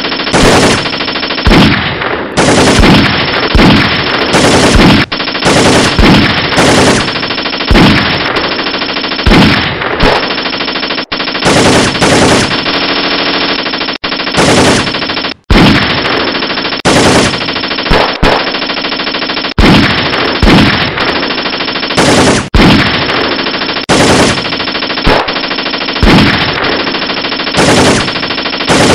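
Sustained automatic gunfire: rapid machine-gun fire in overlapping volleys, with a sharper loud shot about once a second and a brief break about halfway through.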